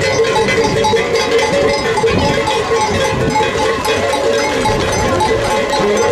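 Many metal cowbells clanking at once, irregularly and without pause.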